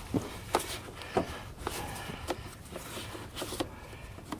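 Light clicks, taps and a brief scraping rub, a handful of separate small knocks about half a second apart, from engine-bay parts being handled and pushed back into place.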